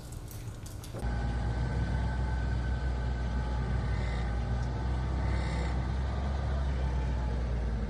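About a second in, a utility vehicle's engine is heard from inside the vehicle, running with a steady low hum that does not change.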